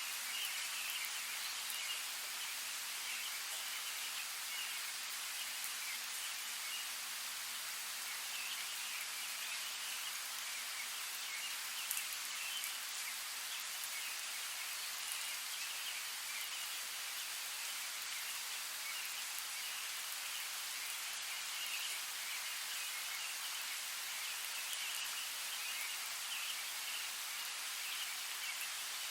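Steady rain falling in a forest: an even, fine hiss of drops on leaves, with a single sharper tap about twelve seconds in.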